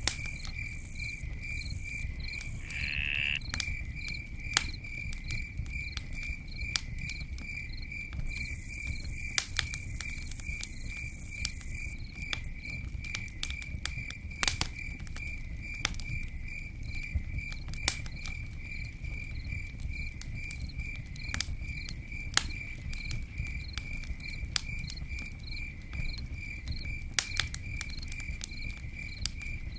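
Campfire crackling with scattered sharp pops over a low steady rumble, while a cricket chirps in a steady, even, high-pitched pulse throughout.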